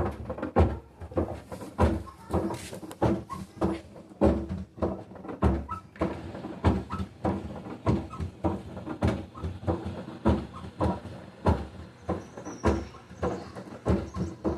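Samsung washer-dryer drum knocking and clunking over and over as it turns, an uneven run of heavy thumps about one to three a second: the noise of a broken drum shaft.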